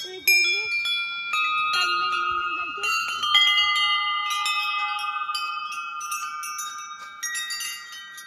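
A long row of hanging brass temple bells struck one after another by hand: many strikes in quick succession, their ringing tones overlapping and sustaining, the whole gradually getting quieter.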